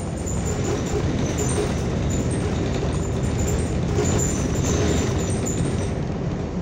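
Interior noise aboard a moving New Flyer XN40 compressed-natural-gas city bus: a steady low rumble of engine and road, with light rattles from the cabin.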